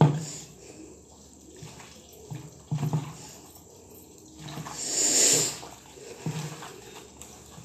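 Wet squelching of raw meat being kneaded and squeezed by hand with its spice marinade in a steel bowl, in short irregular bursts, with a louder swish about five seconds in.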